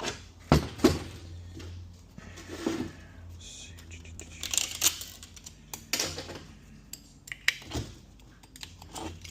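Transmission clutch plates and parts clicking and clinking as they are handled and laid on a workbench: a few sharp metallic knocks among quieter scraping and sliding, over a steady low hum.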